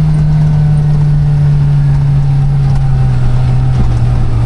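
Motor vehicle engine running steadily, a loud low drone whose pitch slowly drops as the vehicle slows.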